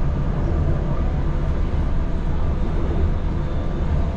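Utsunomiya Light Line tram running at speed, heard from inside the car: a steady, mostly low running noise of wheels on rail.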